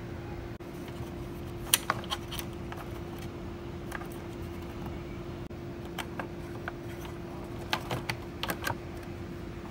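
Scattered light clicks and taps from hand work with tools and parts, in small clusters, over a steady low hum.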